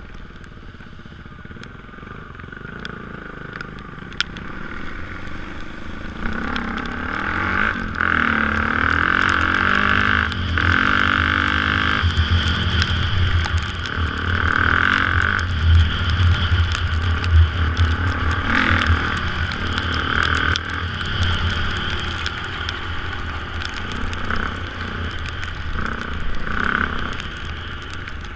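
Dirt bike engine running under way on a wet dirt trail, heard from on the bike. It grows louder from about six seconds in as the rider speeds up, with the pitch shifting through throttle changes, then eases off toward the end.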